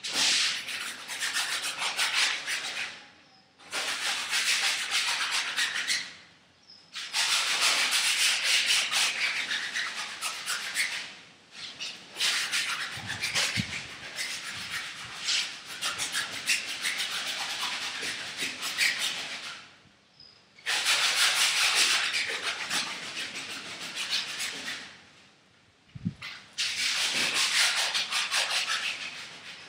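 A paintbrush scrubbing paint across a large canvas, in long spells of rough rubbing lasting a few seconds each, with short pauses between.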